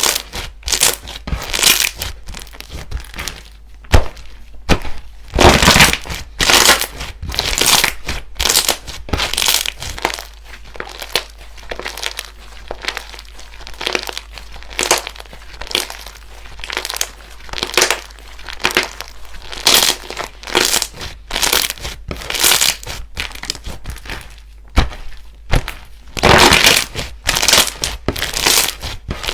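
Slime being squished and pressed by hand, making an irregular run of short, sharp squishing and crackling sounds, several a second at times, with quieter gaps between.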